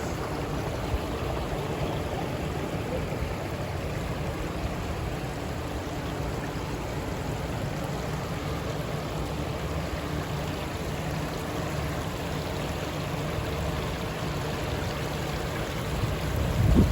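Water of a fountain water feature running steadily, with a brief low rumble near the end.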